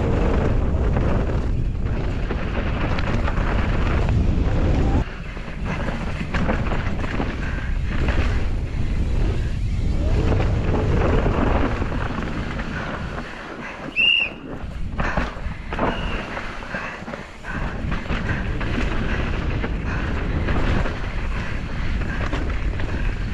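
Wind buffeting a helmet-mounted action camera's microphone, with the rough rattle of a downhill mountain bike over a rocky, rooty track. A brief high squeal comes about fourteen seconds in.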